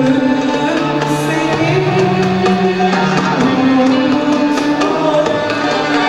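A female soloist singing a Turkish classical art song, accompanied by violins and a light hand-drum beat.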